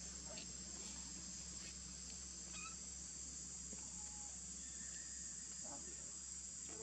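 Steady, high-pitched insect chorus buzzing without a break, with a few faint short chirps here and there.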